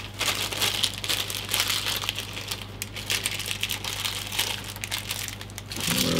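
Small clear plastic bag from the case's screw and standoff kit crinkling and crackling irregularly as it is handled and opened.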